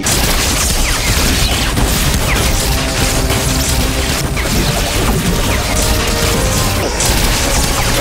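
TV action-scene sound mix: a dense wall of crashing and booming effects over a dramatic music score, loud throughout.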